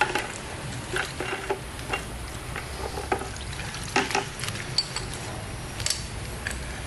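A metal resin-gun filter being swished and worked by hand in a plastic bucket of cleaning solvent: liquid sloshing and splashing with a dozen or so irregular knocks as it moves about.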